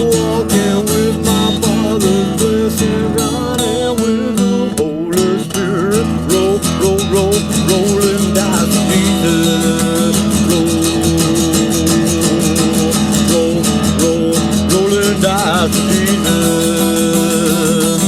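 Instrumental music: acoustic guitar strumming a steady rhythm under a wavering lead melody.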